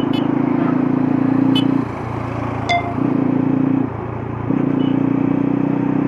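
Bajaj Pulsar F250's single-cylinder engine and exhaust running at about 35 km/h, getting louder in three spells and easing between them. A brief horn toot sounds a little before the middle.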